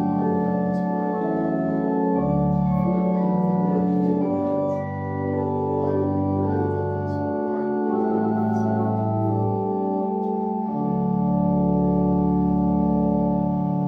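Organ playing slow, sustained chords over a held bass line, the chords changing every two or three seconds: offertory music while the altar is prepared.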